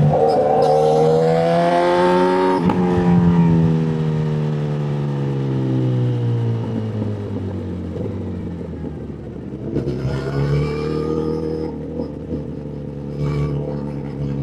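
Motorcycle engine revving up hard for the first couple of seconds, then its pitch falling slowly as the throttle eases off. The revs climb again briefly about ten seconds in and once more near the end.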